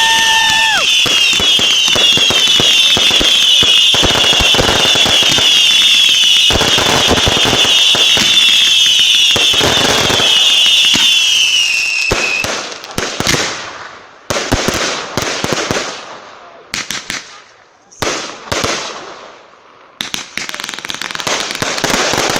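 Consumer firework battery going off. For about twelve seconds there is a dense barrage of crackling and bangs over a band of many high, falling whistles. Then come single sharp bangs with short pauses between them, and near the end a dense volley starts again.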